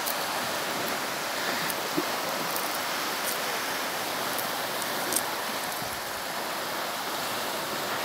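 Steady rushing noise of sea surf, with a few faint small clicks.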